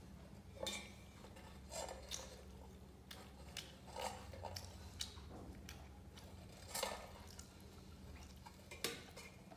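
Stainless steel cooking pot handled by a small child's hands: faint, irregular metal clinks and knocks, a sharper one near the end.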